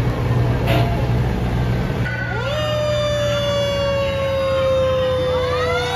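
A fire truck's diesel engine rumbles as it rolls past. Then a siren winds up and holds a long tone that slowly sinks, with more siren wails rising over it near the end.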